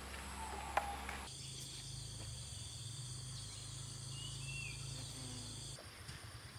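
Steady high-pitched insect chorus trilling, with a couple of short bird chirps in the middle. There is a single sharp click just under a second in.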